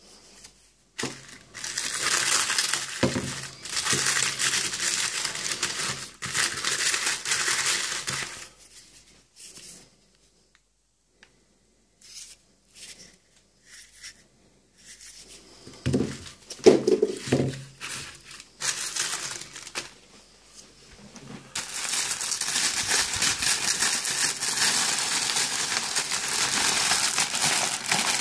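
Red paper wrapping of a firecracker pack being crumpled and torn open, in two long spells of dense crackling, with a few knocks from handling the paper-tube firecrackers about halfway through.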